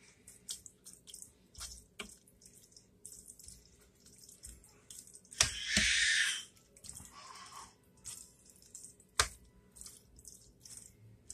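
Red plastic spoon scooping and stirring wet, sauce-covered pasta and vegetables in a dish. It makes soft squelching and scraping, with a few sharp clicks of the spoon against the dish. The loudest squelch comes about five and a half seconds in.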